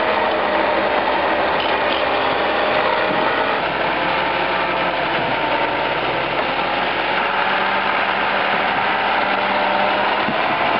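Heavy truck's diesel engine running steadily, its pitch drifting slowly up and down, while the truck is towed out of deep snow.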